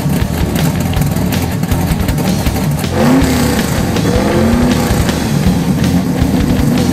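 1967 Mustang race car's V8 running at idle through its side-exit exhaust. About three seconds in it gets louder, with two quick revs that rise and fall.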